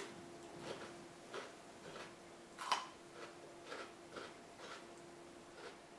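A person chewing a mouthful of food, with soft crunches about twice a second and one louder crunch near the middle, over a faint steady hum.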